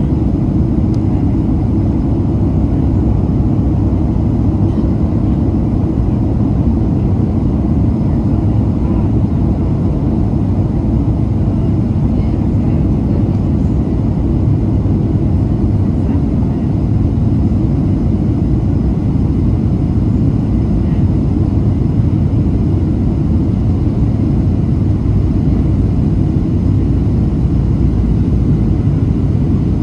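Boeing 737-800 cabin noise: its CFM56 turbofan engines and the airflow make a steady, even low rumble, heard from inside the passenger cabin.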